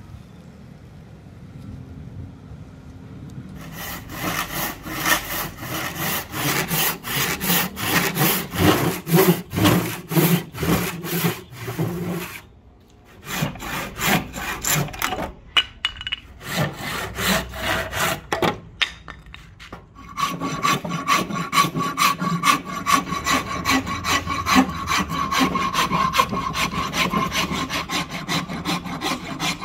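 Handsaw cutting into a hardwood axe handle held in a vise, in rhythmic back-and-forth strokes with short pauses. About twenty seconds in, a flat metal file takes over, rasping along the wood in quicker, steadier strokes.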